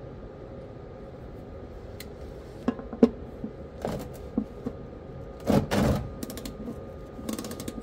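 Scattered knocks and clanks of hand tools at work on a truck during an oil change, loudest a little past halfway, with a brief run of rapid clicks near the end.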